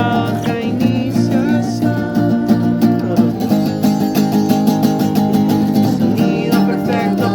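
Live acoustic performance of an indie pop song: acoustic guitar strumming steadily, with a voice singing over it near the start and again near the end.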